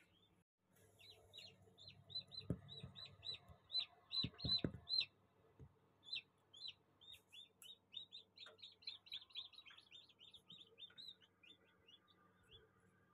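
Hatching chicks peeping in an egg incubator: a long run of short, high, falling cheeps, about three or four a second, over a low steady hum. A few dull knocks come about two and a half and four and a half seconds in, the loudest moments.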